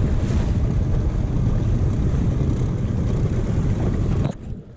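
Wind buffeting the microphone on a small open boat at sea, a steady heavy rumble with water and hull noise beneath, dropping away sharply about four seconds in.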